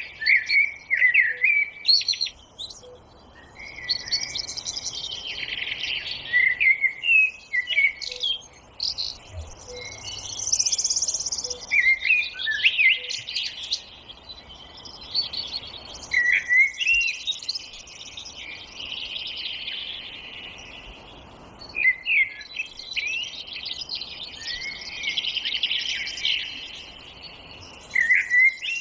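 Several songbirds singing at once in a forest: short whistled phrases, chirps and fast trills overlapping with hardly a pause.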